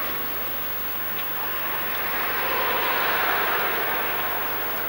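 Car tyres hissing on a wet road as a car passes, the hiss swelling to a peak about three seconds in and then fading.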